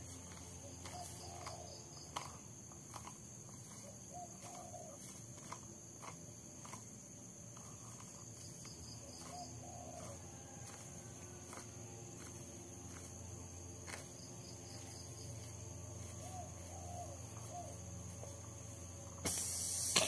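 Quiet outdoor background of steadily droning insects, with a few short bird calls and occasional light clicks. About a second before the end, music cuts in much louder.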